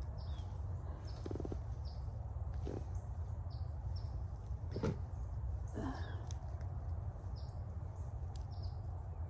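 A bird calling outdoors: a short, high, falling chirp repeated about once a second over a steady low rumble, with a couple of brief rustles of soil being handled near the middle.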